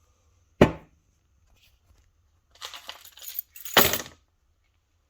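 A single sharp knock, then about a second and a half of rattling clatter that ends in a second loud knock.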